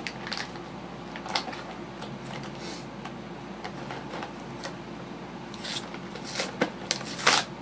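Toy packaging being handled and torn open: irregular crinkling and rustling with short sharp crackles, the loudest burst of them near the end.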